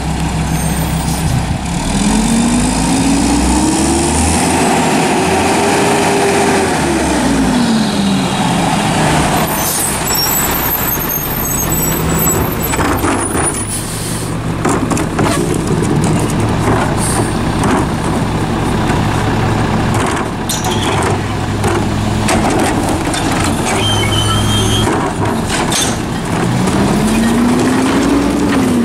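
Mack MR rear-load garbage truck's diesel engine rising and then falling in pitch as the truck pulls up, followed by an air-brake hiss. Then come repeated clanks and bangs as a wheeled trash cart is tipped and shaken into the rear hopper, and near the end the engine revs up again as the packer starts its cycle.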